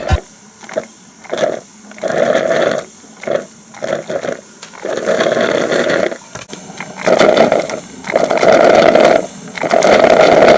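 Small portable drip coffee maker (TSK-158) gurgling and sputtering in irregular bursts as hot water is pushed through while it brews.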